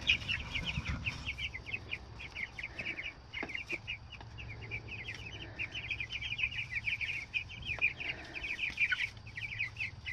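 A flock of three-week-old meat chickens cheeping, with many short, high chirps overlapping without a break.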